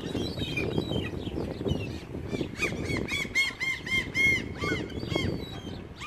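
Gulls calling. From about two seconds in, one gives a laughing series of short rise-and-fall cries, about three a second, that stops near the end.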